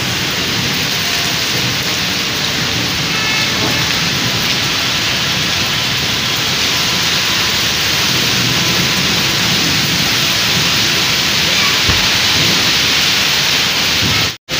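Heavy rain pouring steadily onto a flooded paved street, a dense even hiss of drops splashing on standing water. The sound drops out abruptly for a moment just before the end.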